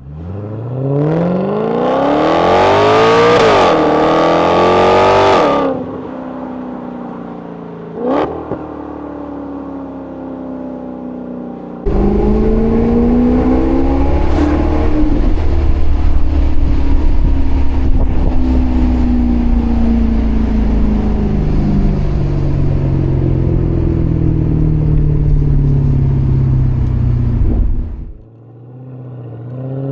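The Maserati GranCabrio's Ferrari-derived 4.7-litre V8 revs up hard with a steeply rising pitch, then is cut back about six seconds in. A short, sharp rev blip comes about eight seconds in. From about twelve seconds a loud low rumble sets in, with the engine pitch slowly falling, before a brief drop and the revs climbing again near the end.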